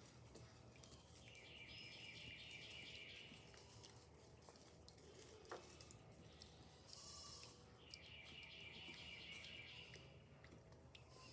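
Goats bleating faintly: two long, quavering bleats several seconds apart.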